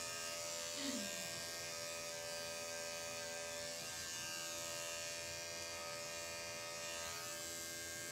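Andis five-speed corded electric dog clippers running steadily with a buzzing hum while clipping a dog's coat. A short falling sound about a second in.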